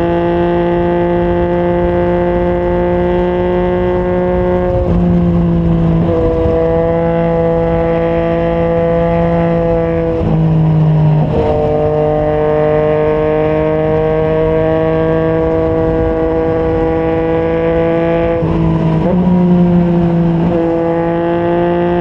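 Yamaha MT-09 inline-three running through a Yoshimura R55 slip-on exhaust at highway speed, heard from the rider's position with wind noise underneath. The engine note holds steady and slowly climbs, broken three times by a brief dip in pitch before it settles again.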